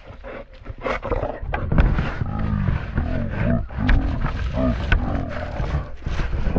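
American Bully dog breathing hard and grunting close to the microphone, a low voiced huff about every half second, winded from running and jumping up onto a wall.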